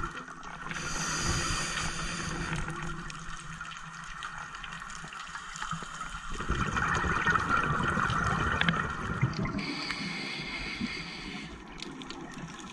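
Underwater sound picked up by a GoPro in its housing on a scuba dive: a steady watery hiss, two hissing breaths through a regulator (about a second in and near ten seconds), and bubbling from the exhale in between.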